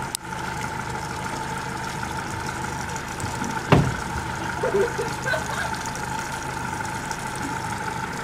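Yamaha 115 outboard motor idling steadily, with a single thump a little before midway.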